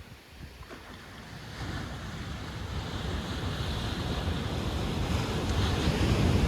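Ocean surf breaking on a steep shore-break beach, the wash growing steadily louder over the seconds, with wind rumbling on the microphone.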